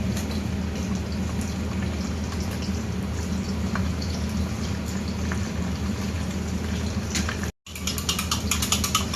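Steady rushing hum of a kitchen range hood fan running over the stove. After a brief cut near the end, light clicking and crackling join it.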